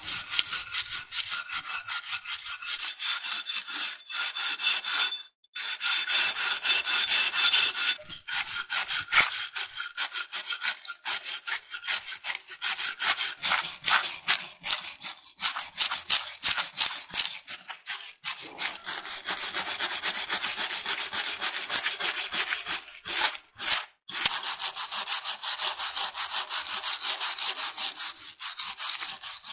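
Hand wire brush scrubbing rust off an old cast-iron block plane and its parts, in rapid back-and-forth strokes. There are brief breaks about five seconds in and near the end.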